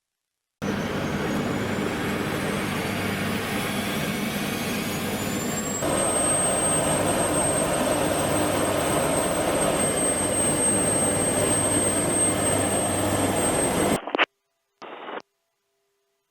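UH-1Y Venom helicopter's turbine engines and rotor running steadily. About six seconds in, the sound shifts to a slightly louder noise with a steady high whine. It cuts off near the end, followed by two short bursts of intercom static.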